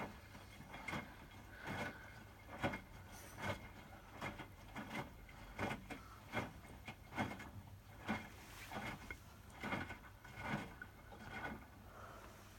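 Hotpoint WMFUG 942 washing machine washing with its heater on: the wet load tumbles in the turning drum, giving a regular slosh-and-thud about every 0.8 seconds over a low steady hum.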